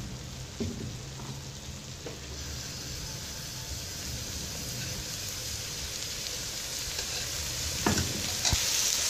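Rice layered with sugar sizzling in oil in a steel pot on the stove. The hiss grows louder and brighter from a few seconds in as the flame is turned back up, with a couple of light knocks near the end.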